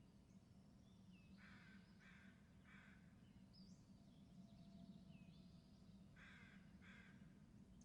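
Faint bird calls: a series of three short, harsh calls about a second and a half in and again about six seconds in, with thin, high gliding chirps between them.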